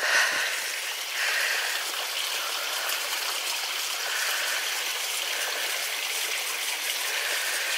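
Small woodland stream running over rocks, a steady rush of water.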